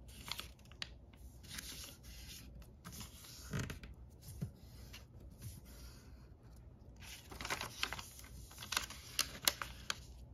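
Origami paper rustling and crinkling in bursts as a folded sheet is opened out flat and folded again. There are several sharp, crisp crackles near the end as a fold is pressed.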